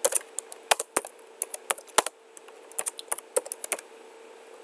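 Typing on a computer keyboard: an irregular run of key clicks with a brief pause a little after two seconds in, over a faint steady hum.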